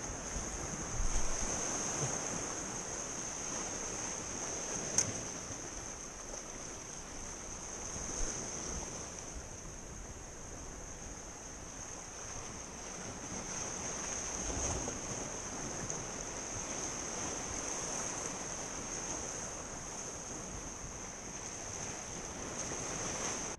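Sea surf washing against a rocky shore with wind on the microphone, under a steady high-pitched insect drone. A single faint click about five seconds in.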